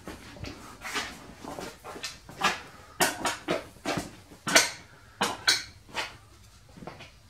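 Irregular sharp metallic clicks and knocks from a model aero engine and its stand being handled and readied for starting, not yet running.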